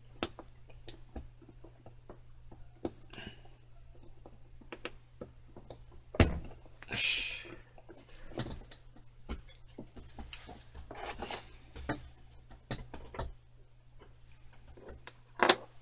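Small metal hand tools clicking and scraping against the parts of a Marryat MR7A fly reel's spool shaft while a retaining ring is pried off, with scattered light clicks, a sharper click about six seconds in and another near the end. A brief rustle follows the first sharp click.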